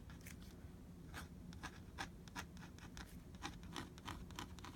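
Fountain pen nib scratching on paper in many short, quick strokes, faint and irregular, as feathers are sketched in ink.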